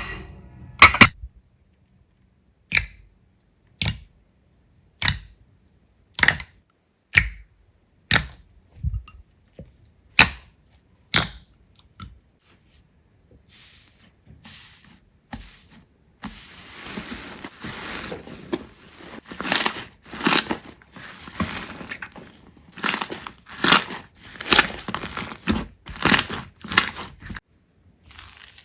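Slime being handled: sharp pops about once a second, then from a little past halfway a denser run of crackling and crunching.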